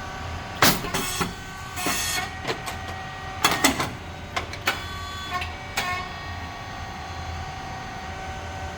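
SYP9502 rice cake popping machine running: a steady hum of its motor, hydraulic pump and fan with several steady tones, broken during the first six seconds by sharp clacks and short hissing bursts as the heated moulds work through their press-and-pop cycle.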